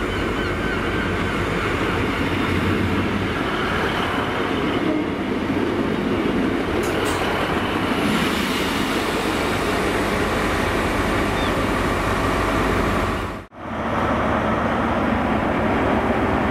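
Class 153 single-car diesel railcar running into the platform and passing close by, its underfloor diesel engine and wheels on the rails making a steady noise. About thirteen seconds in, the sound breaks off abruptly and gives way to a Class 43 HST diesel power car approaching along the platform.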